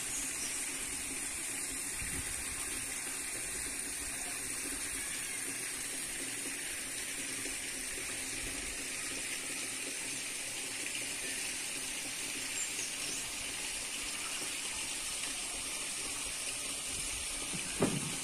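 Steady rush of running water, even throughout, with a short thump near the end.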